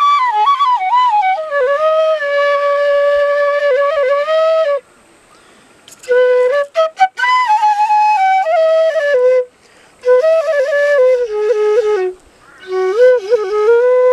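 Solo bansuri, a bamboo transverse flute, playing a slow Nepali folk tune. It moves in phrases with short breath pauses, with a falling opening line, a few quick short notes a little past the middle, and long held notes at the ends of phrases, including one near the end.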